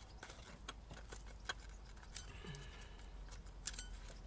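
Scattered faint clicks and taps of the strut's top-mount parts being handled, a few sharp ticks spread irregularly over the seconds.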